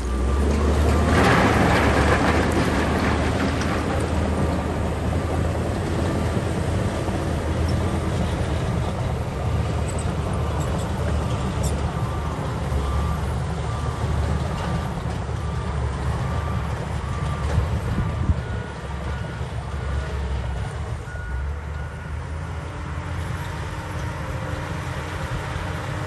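Heavy diesel construction machinery running with a deep, steady engine rumble. A loud rushing noise fills the first few seconds. Partway through, a reversing alarm beeps at about one beep a second for several seconds.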